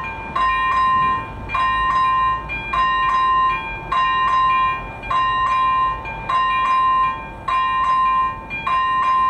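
Electronic warning bell of a Czech level crossing (AŽD 97 signal with ZV01/ZV02 sounders) ringing a repeated metallic ding, about one a second. It means the crossing is closed for an approaching train.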